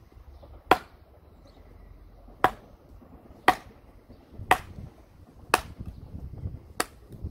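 Wooden mallet knocking on the back of an axe head, driving the axe down through a piece of firewood to split it: six sharp strikes about a second apart.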